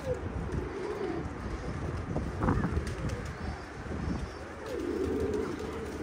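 Domestic pigeons cooing in low warbling phrases, the fullest near the end.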